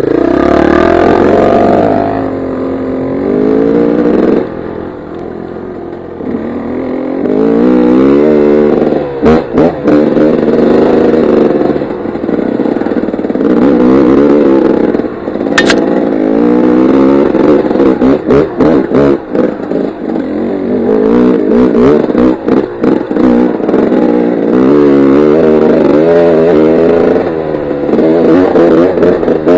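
Dirt bike engine repeatedly revving up and easing off on a rough trail, with frequent short knocks and clatter over rocks. The engine drops back to a lower, quieter run for a few seconds early on.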